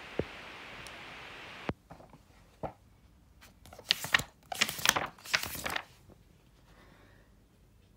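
Pages of a large book being flipped: a run of loud paper rustles and flaps lasting about two and a half seconds in the middle. Before that there is a steady hiss that stops with a click after under two seconds, and a couple of small knocks.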